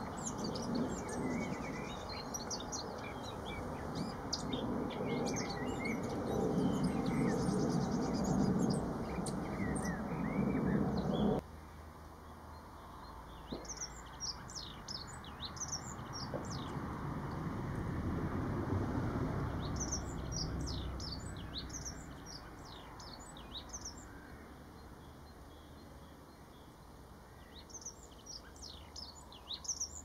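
Small songbirds singing: scattered high chirps over a low steady background rumble that cuts off about eleven seconds in. After that comes a dunnock's short, fast, high warbling song, a phrase every few seconds.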